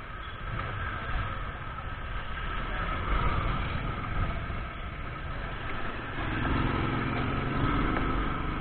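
Motorcycle engine running while riding, with road and wind noise; the engine note grows louder from about six seconds in.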